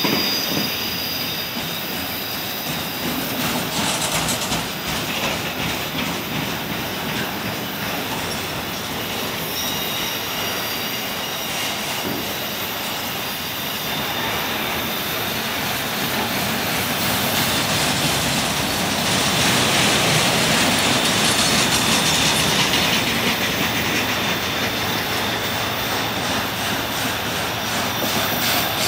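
Freight train of autorack cars rolling past: a steady rumble of steel wheels on rail, with faint high wheel squeal at times and rhythmic clacking near the end.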